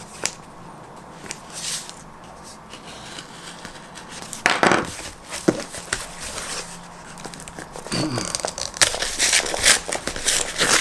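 Cardboard shipping box being opened: a pocket knife blade scraping through packing tape, the box rubbing and knocking on the table as it is turned over, and cardboard crinkling and tearing. One loud rustle comes about four and a half seconds in, and the rustling and tearing grow dense over the last few seconds.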